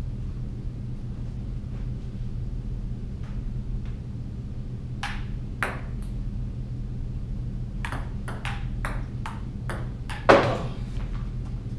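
Table tennis ball clicking off paddles and the table in a short rally: two clicks about five seconds in, then a quick run of about eight, two to three a second. The loudest is one hard knock near the end.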